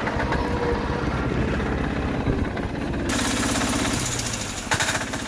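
Sears garden tractor's 6 HP air-cooled single-cylinder diesel engine running steadily. A hiss comes in about three seconds in, and there is one sharp knock near the end.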